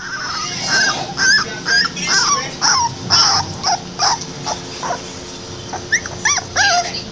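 Three-week-old American Pit Bull Terrier puppies whimpering and squealing in a quick run of short high cries, about three a second, with three sharper rising-and-falling yelps near the end.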